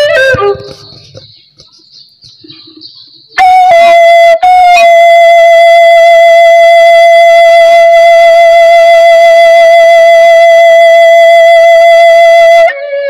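A small vertical wind pipe being played. A note dies away at the start and about three seconds are quiet. Then comes a short note and a long, steady held note of about eight seconds, which breaks off just before the end.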